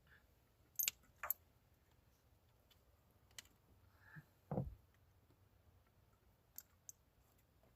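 Scattered sharp clicks, two close together about a second in and a few more later, and one dull knock about four and a half seconds in, from tools and parts being handled during work on a car; otherwise quiet.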